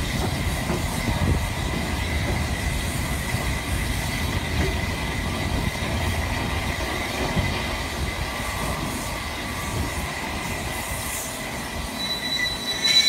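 Train behind S15 steam locomotive No. 847 rolling over track and pointwork, with a low rumble from the wheels that slowly fades and a thin, steady wheel squeal. Near the end a sharper, higher squeal rises.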